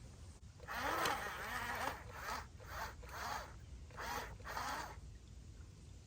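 Small electric motors of radio-controlled construction machines whirring in a series of short bursts, pitch rising and falling as the controls are worked; the first burst is the longest.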